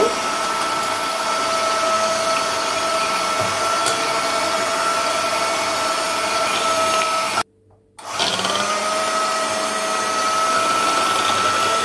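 Electric hand mixer running at a steady whine, its beaters whisking raw eggs in a glass bowl. The sound cuts out for about half a second a little past the middle, then the motor's whine rises back up to speed.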